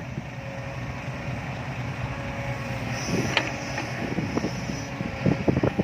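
Heavy diesel machinery running steadily at the earthworks, a low engine rumble, with wind on the microphone. A few short knocks and clunks come about three seconds in and again near the end.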